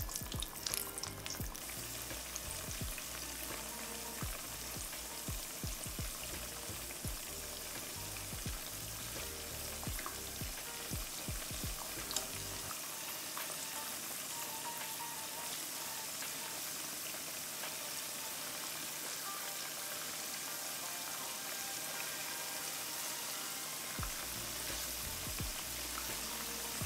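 Cornstarch-coated soy protein patties frying in about an inch of hot oil in a wok: a steady sizzling hiss with frequent small pops and crackles, which thin out about halfway through. The heavy bubbling is the sign of oil running a little too hot.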